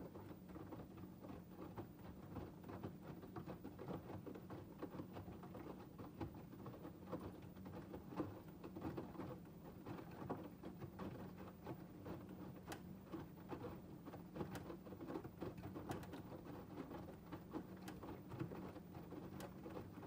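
LG TurboWash front-loading washing machine's drum turning during the fill stage, wet cotton laundry tumbling and sloshing through the water with a dense patter of splashes and small knocks over a steady low hum.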